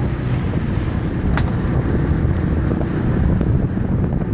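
Wind buffeting the microphone on a moving boat, a steady heavy rumble with a single sharp click about a second and a half in.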